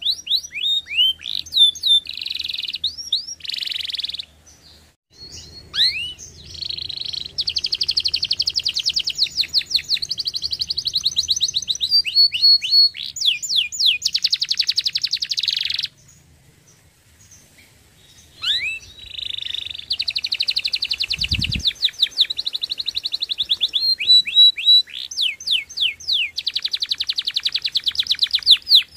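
Domestic canary singing: phrases of rapid repeated chirps and fast buzzing trills, broken by two short pauses. A brief low thump comes about two-thirds of the way through.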